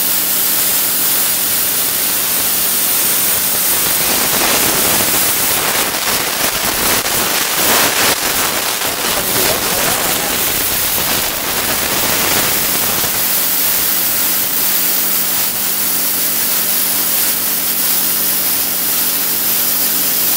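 Tenya Cut60c plasma cutter torch cutting a circular hole in a thin metal sheet: a loud, steady hiss of the plasma arc and its air jet, over a faint steady machine hum.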